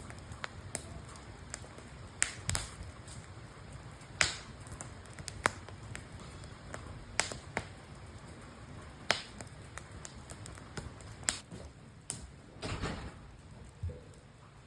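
Wood campfire crackling, with irregular sharp pops at uneven intervals, a few of them louder, over a low steady rumble.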